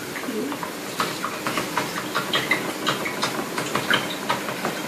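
A stirring stick clicking against the sides of a clear plastic container as water is stirred, in rapid ticks about four or five a second over a steady hiss.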